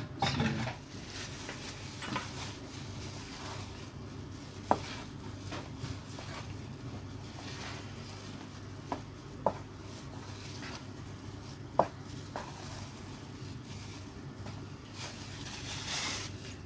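Tapioca flour being kneaded by hand into ground shrimp paste in a stainless steel bowl: soft, steady mixing and squishing, with a few short sharp clicks.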